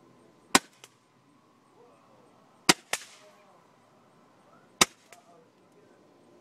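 Roman candles firing from a PVC-pipe launcher: three sharp pops about two seconds apart, each followed a fraction of a second later by a fainter second pop.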